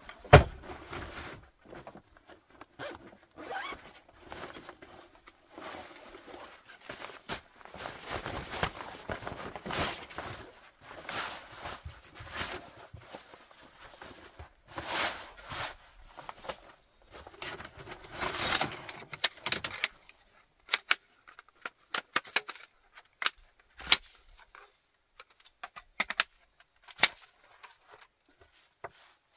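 A camping cot's carry bag thumps down on a plywood platform, then nylon fabric rustles and slides as it is pulled out and spread. From about two-thirds of the way in, the cot's poles click and clack as they are handled.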